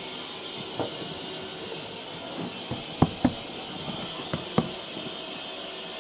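Steady hiss of steam from a standing steam locomotive, with a few sharp knocks, two quick pairs of them about three seconds and four and a half seconds in.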